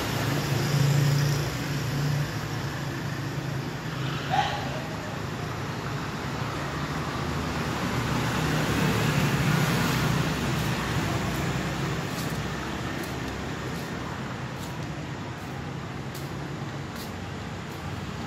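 Motor vehicle engine running steadily under road and traffic noise as it rides through city streets, with scooters and cars passing close by. A brief high squeak sounds about four seconds in.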